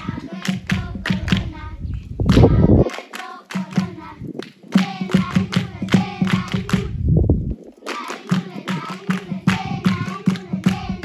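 A group of people singing together with rhythmic hand clapping.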